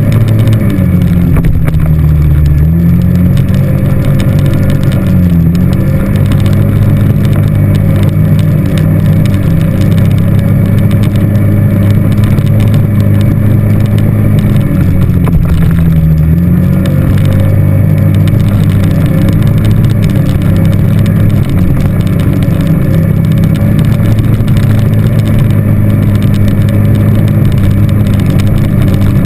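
ATV engine running loud and steady under way on a dirt track, its pitch dipping briefly a few times as the throttle eases off and comes back.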